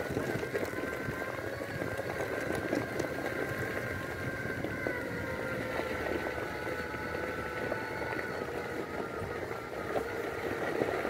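Magic Mobility Extreme X8 power wheelchair driving over gravel: its electric drive motors whine steadily, shifting slightly in pitch, over the crunch and crackle of the tyres on the stones.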